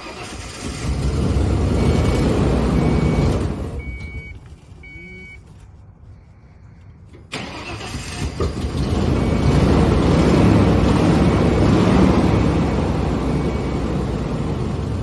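OBS Ford pickup engine being cranked in two long attempts, about four seconds and then about eight seconds, with a pause between them, without settling into a clean idle. The owner suspects the fuel is old or there is too little of it. A vehicle warning chime beeps in the pause.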